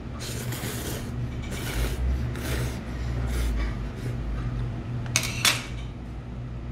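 A man slurping hot kalguksu (knife-cut noodle soup) noodles: several short, noisy slurps, with the sharpest pair about five seconds in.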